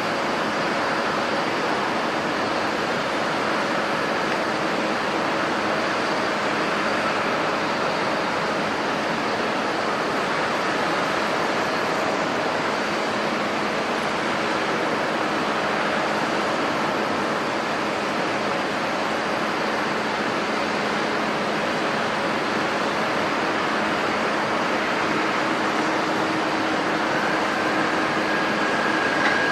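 Jet airliner engines running steadily: an even rush of noise with faint steady tones, and a higher whine coming in near the end.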